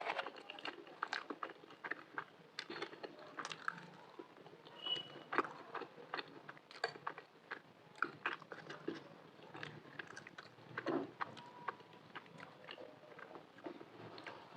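Close-miked eating of macaroni with green chilies: biting and chewing, with many irregular wet mouth clicks and an occasional crunch.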